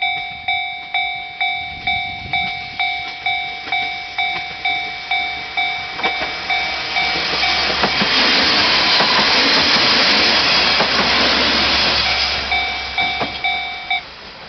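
Japanese railway level-crossing alarm sounding the JR standard electronic bell, about two strikes a second, while a two-car KiHa 47 diesel railcar train passes over the crossing. The train's engine hum builds first, then its engine and wheel noise on the rails swells loudest through the middle and dies away. The bell stops suddenly just before the end.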